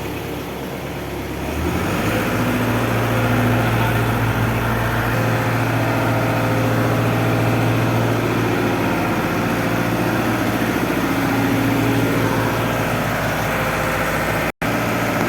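Heavy engine of a construction machine running steadily and picking up load about two seconds in. The sound cuts out for an instant near the end.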